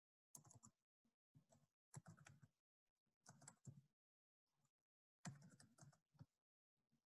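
Faint computer keyboard typing, in several short bursts of keystrokes with silence between them.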